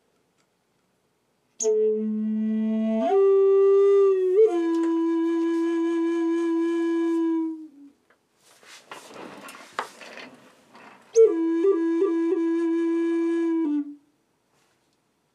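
Recorded flute in A played back: a low held note that steps up and settles into a long sustained tone, then a breathy, airy stretch, then a second held phrase with quick grace-note flicks. The breathy air noise fits the player's suspicion that flute air was hitting the microphones.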